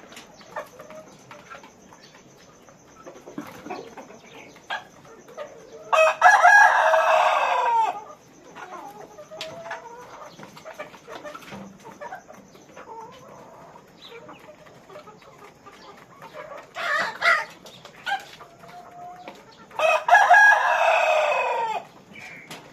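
Rooster crowing twice, each crow about two seconds long and falling in pitch at the end, with a shorter call between and chickens clucking underneath.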